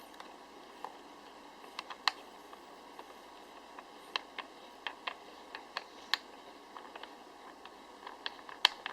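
Irregular small clicks and taps of a handheld camera being handled and taken off its tripod, over the steady rush of PC case fans running at their highest speed.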